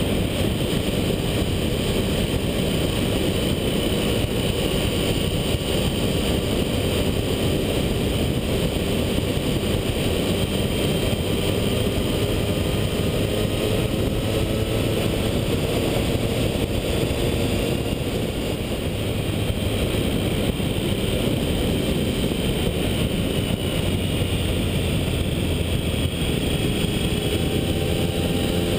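Triumph Tiger 1050's three-cylinder engine running steadily under way, its pitch drifting slightly with small speed changes and rising a little near the end, with rushing wind noise over it.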